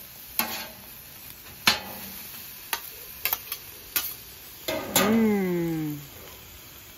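Metal spatulas clacking and scraping on a steel flat top griddle as chopped beef is worked, over a faint sizzle. About five seconds in comes the loudest sound: a drawn-out, voice-like call that falls in pitch over about a second.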